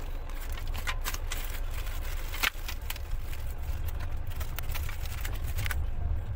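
Plastic cling film and a clear plastic tray lid crinkling and crackling as a wrapped meal tray is unwrapped by hand. Under it runs the low steady rumble of a moving train. The crinkling stops shortly before the end.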